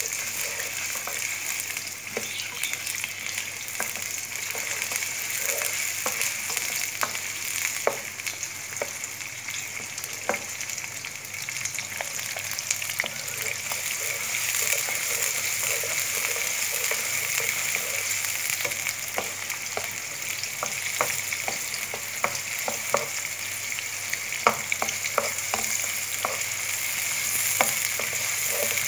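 Sliced onions sizzling steadily in hot oil in a frying pan, with frequent short scrapes and taps of a spatula stirring them; the onions are being fried to light brown.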